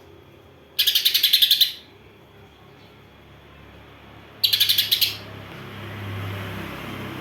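Caged songbird giving two rapid bursts of harsh, sparrow-like chirps, about ten notes a second. Each burst lasts about a second, and the second comes some three and a half seconds after the first.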